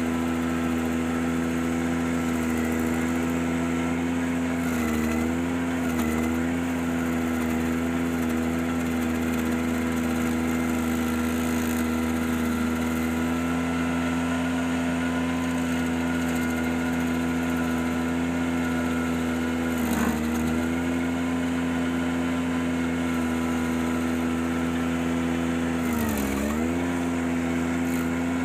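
Ventrac 4520Z tractor's engine running steadily at working speed, driving a KC180 stump grinder. Its pitch dips briefly a few times, most deeply near the end, as the load comes on it.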